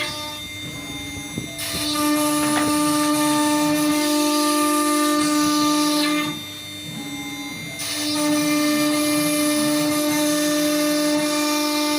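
CNC router spindle running at a steady high whine while its bit cuts wood, with a hiss of cutting over it. It goes loud in two long spells of about four seconds each, dropping quieter for about a second and a half in between and at the start.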